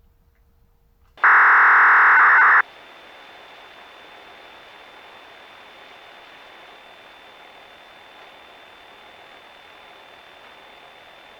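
Outdoor disaster-warning horn loudspeakers of an analog municipal radio system switching on. About a second in comes a loud burst of radio static lasting about a second and a half and cutting off abruptly. A steady hiss with a faint high whine follows as the channel stays open.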